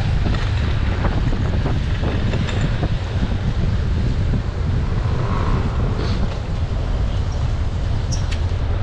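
Wind rushing over the microphone of a camera on a moving bicycle, a steady low rumble, with traffic noise underneath.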